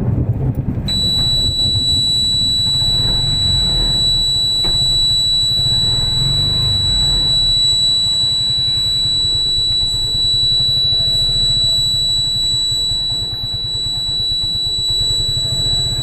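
Low, steady rumble of a car being driven, with a constant high-pitched electronic beep that switches on about a second in and holds without a break.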